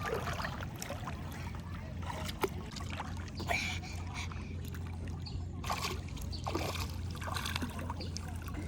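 Boat motor running with a steady low hum, with water splashing and trickling over it.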